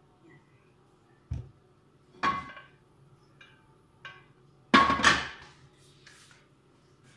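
Grill pan knocking and clanking against the gas stove's metal grate: a thud about a second in, a clatter around two seconds, and the loudest double clank near five seconds as the pan is set back down.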